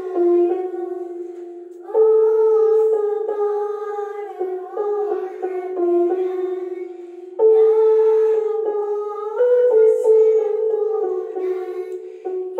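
Children singing a slow melody in long held notes, in phrases broken by short pauses.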